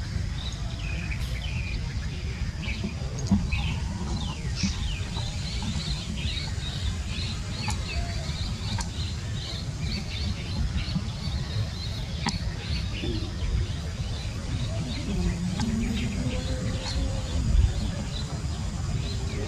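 Small birds chirping over and over in quick short notes, over a steady low rumble.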